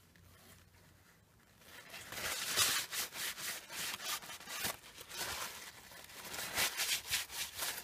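Paper towel rubbing and rustling along a metal lathe spindle as it is wiped clean, in irregular strokes that start about two seconds in.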